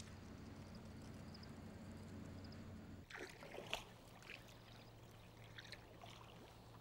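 A steady low hum that stops about three seconds in, followed by faint water splashes and drips from a canoe paddle dipping into calm river water, with one louder splash just after the change.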